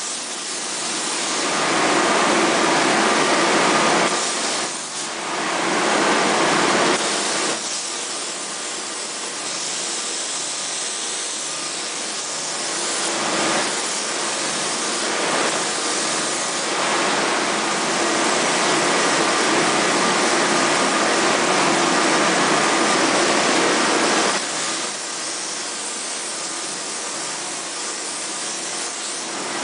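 Spray foam gun hissing steadily as it sprays polyurethane foam onto a wall, growing louder and softer in long stretches, with a faint steady whine underneath.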